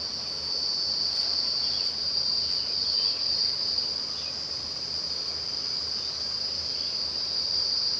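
A steady high-pitched insect trill that runs without a break.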